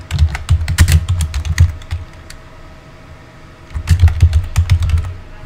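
Typing on a computer keyboard in two quick bursts of keystrokes, each about one and a half to two seconds long, with a pause of nearly two seconds between them.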